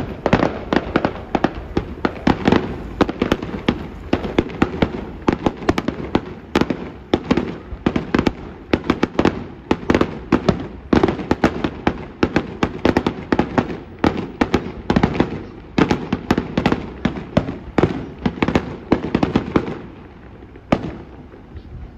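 Aerial fireworks shells bursting one after another in a dense series of bangs and crackles. The barrage thins out near the end, with one more bang after a short lull.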